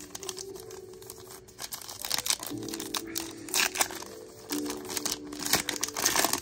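A trading-card pack wrapper crinkling and tearing as it is pulled open by hand: a run of sharp crackles, loudest in the second half. Soft background piano music plays underneath.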